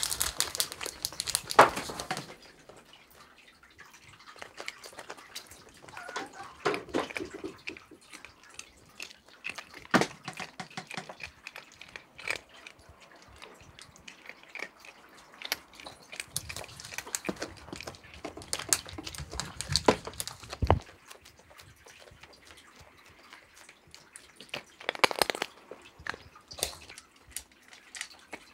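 A cat crunching dry, crunchy cat treats, heard as scattered small crunches and clicks with intermittent rustling. The loudest burst comes near the start.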